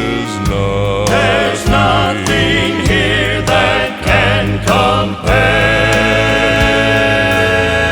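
Gospel song: voices singing with instrumental backing, the words of the last line drawn out, then a long held final chord from about five seconds in.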